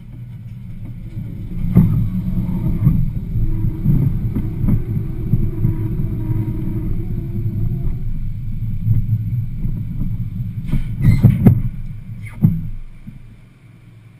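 Roller coaster train rolling on its steel track into the station, with a low rumble from the wheels and several sharp clunks, the loudest cluster about eleven seconds in. The rumble fades as the train slows to a stop near the end.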